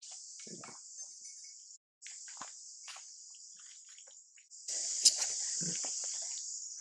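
Steady high-pitched drone of an insect chorus. It drops out briefly just before two seconds in and comes back louder a little past halfway, with a few faint rustles and knocks underneath.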